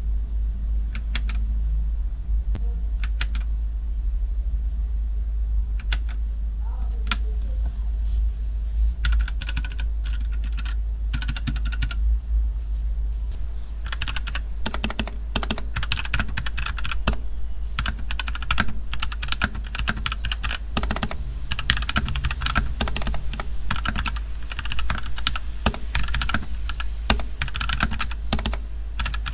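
Mechanical keyboard with clicky blue switches being typed on: a few separate key presses at first, then fast, continuous typing from about halfway through. A steady low hum runs underneath.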